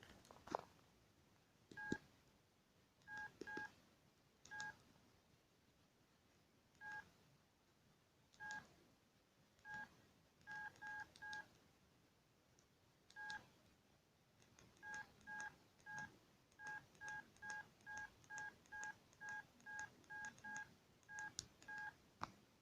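Siemens C62 mobile phone keypad beeping as its buttons are pressed, each press a short single-pitched beep with a faint click. The presses are irregular at first, then come in a quick run of about two or three a second near the end.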